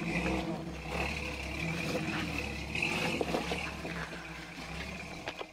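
Toyota FJ40 Land Cruiser's engine running at low revs as the truck crawls over granite boulders, with a steady high-pitched whine alongside.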